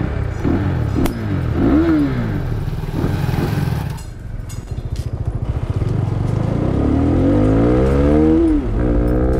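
Sport motorcycle engine revving as the bike pulls away. The pitch climbs about two seconds in, eases off around four seconds, then climbs again for a longer stretch and falls sharply near the end, like gear changes under acceleration.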